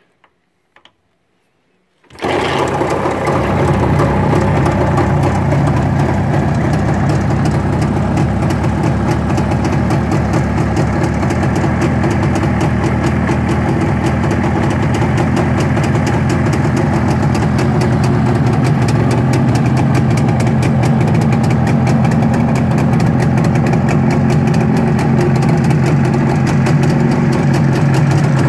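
Jawa 350 two-stroke twin motorcycle engine starting about two seconds in, after a couple of clicks from the lever, then idling steadily.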